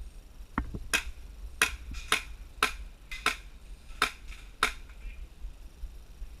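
Airsoft gas-blowback gun firing single shots: about seven sharp clacks, roughly half a second apart.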